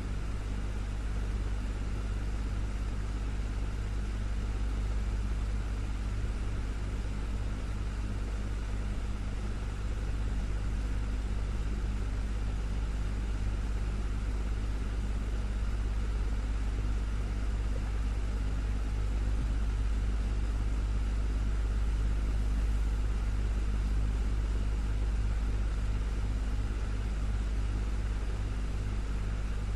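Desktop fan running steadily: a low motor hum with an even rush of air.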